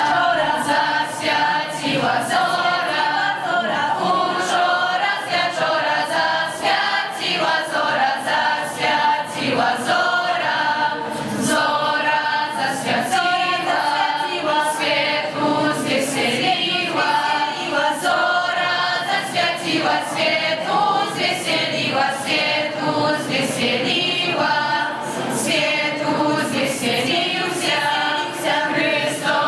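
A school choir of teenage girls and a few boys singing a Christmas carol a cappella.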